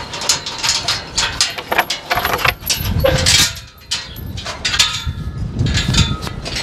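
A metal tube farm gate rattling and clanking as it is handled and swung open, a string of irregular metallic knocks and jingles.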